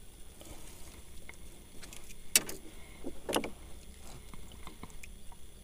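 Handling noise in a small boat as a snakehead is held in a lip grip and unhooked with pliers: small clicks and two sharp knocks about a second apart, the first the louder, over a low steady rumble.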